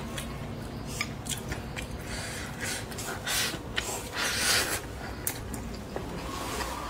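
Close-miked eating: chewing of stir-fried greens, with many small wet mouth clicks and a few louder breathy bursts, like sniffs or slurps, in the middle.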